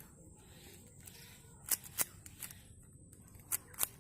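Plastic Rubik's cube layers being twisted by hand, giving sharp clicks, mostly in quick pairs, from about halfway through.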